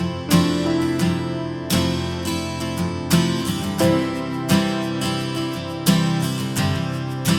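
Background music: an acoustic guitar strummed in a steady pattern, with a strong strum about every second and a half.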